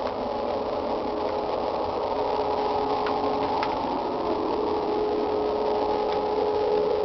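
A steady droning hum with one constant mid-pitched tone and a few higher tones over it, which the uploader takes for a strange sound from the sky. Two faint clicks come about three seconds in.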